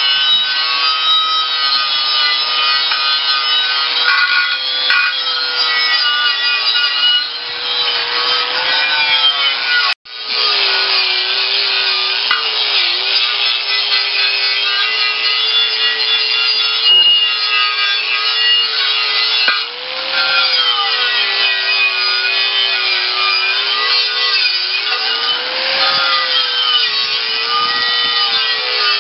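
Angle grinder with a wire wheel scouring rust off a steel tractor wheel rim: a steady motor whine over a harsh scratching hiss, the pitch dipping and recovering as the wheel is pressed into the metal. The sound cuts out for an instant about ten seconds in and starts again at once.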